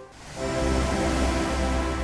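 Slow ambient music of long held chords over a low steady drone. It dips nearly to quiet at the start and swells back in within half a second.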